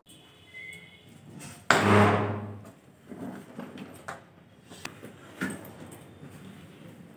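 Suitcases being handled and moved on a floor: one heavy thump about two seconds in that fades over about a second, then scattered light knocks and rustles.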